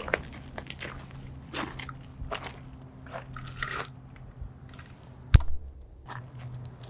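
Irregular crunching footsteps, with one sharp knock about five seconds in.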